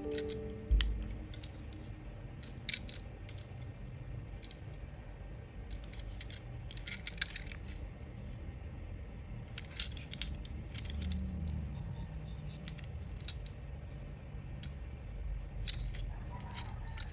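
Light, irregular clicks and taps of small hard plastic and metal pieces being handled, as when die-cast toy cars and their parts are picked up and set down, with one dull bump about a second in.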